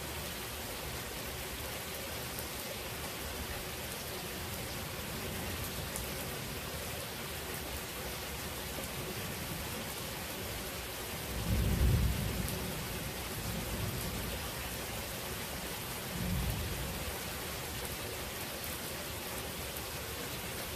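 Steady rain falling throughout. About halfway through, a roll of thunder swells up and rumbles for a second or two, followed by two fainter rumbles.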